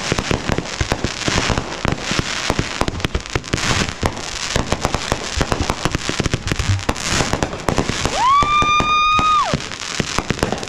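Consumer fireworks going off in a rapid, unbroken run of pops and crackles. About eight seconds in, a steady high whistle comes in over them and lasts just over a second.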